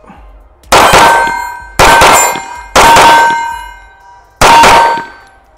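Four pistol shots from a 9mm CZ Shadow 2 Compact fitted with a DPM gold short recoil spring. Each shot is followed by a metallic ring from a steel target being hit, fading over about a second. The first three shots come about a second apart, and the fourth follows after a slightly longer pause.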